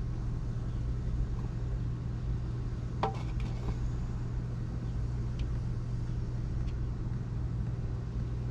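Steady low hum and rumble, with a brief clatter of light clicks about three seconds in and a couple of faint ticks later.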